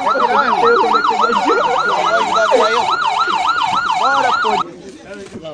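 Police car siren on a fast yelp, rising and falling about four times a second, then cutting off suddenly near the end.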